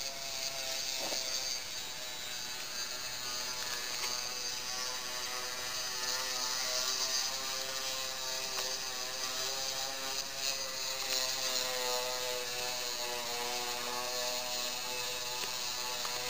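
LEGO 9V micromotor whining steadily through its small plastic gear train, its pitch drifting slowly as it drives the walking legs of a micro-scale LEGO AT-AT, with a few light clicks from the Technic leg linkages.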